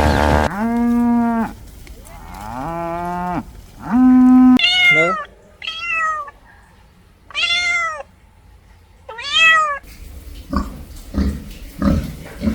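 Three short, low-pitched animal calls, then a cat meowing four times, each meow rising and falling in pitch.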